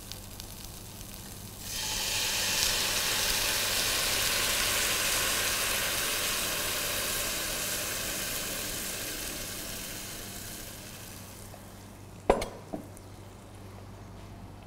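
Broth poured from a glass measuring jug into a hot pot of sautéed cauliflower, hissing and sizzling as it hits the pan, then slowly dying down. A single sharp knock near the end.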